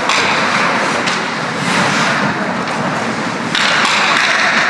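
Ice hockey play at the rink: skate blades scraping and carving the ice, with sharp knocks from sticks and puck, and a louder scrape about three and a half seconds in.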